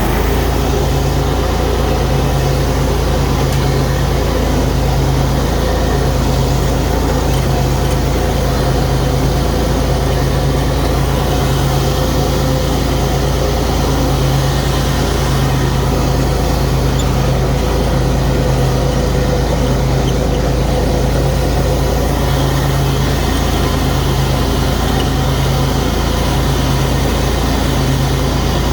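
Bad Boy zero-turn mower's Vanguard V-twin engine running steadily with the blades engaged, mowing tall grass with the deck set low.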